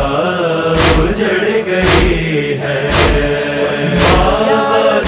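Urdu noha (Shia lament) chanted by a male voice over a humming backing chorus, with a heavy thump about once a second keeping the beat.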